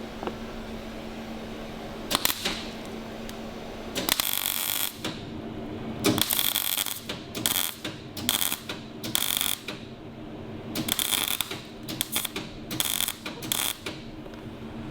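MIG welder laying a series of short, irregular welding bursts on the steel fork brace, each a fraction of a second to about a second of crackling, with brief pauses between. Two short sharp sounds come first, about two seconds in.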